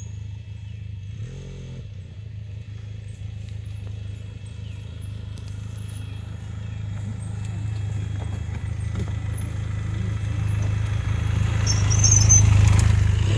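Benelli TRK 502's parallel-twin engine running at low revs as the motorcycle picks its way slowly down a rocky trail, growing steadily louder as it approaches and loudest as it passes close about twelve seconds in.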